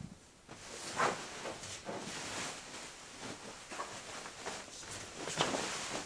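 Duvet and bedding rustling as they are moved and smoothed over a bed, with louder swishes about a second in and again near the end.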